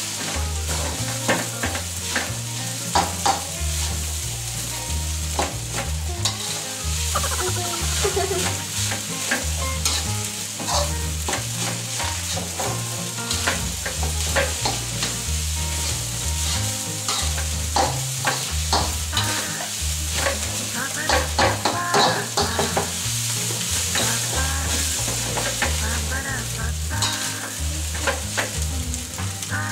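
Fried rice sizzling in a hot steel wok while a metal spatula scrapes and knocks against the pan in an irregular rhythm as the rice is stirred and tossed.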